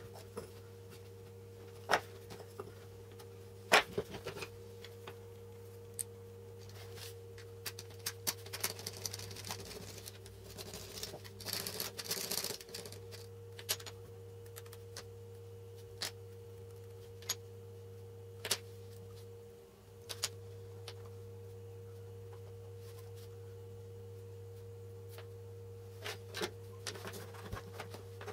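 Small aluminium parts and tools handled on a wooden tabletop: scattered sharp taps and clicks, with a few seconds of scraping about eight to thirteen seconds in, over a steady low hum.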